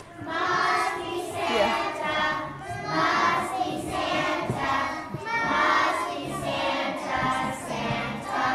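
A group of preschool children singing together in unison, phrase after phrase with short breaks between them.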